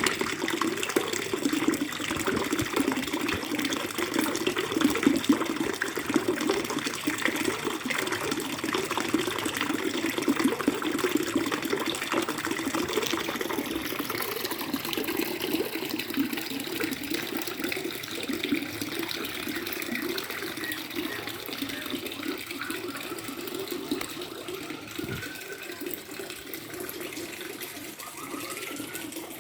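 Trickling, gurgling water running steadily, a little softer toward the end.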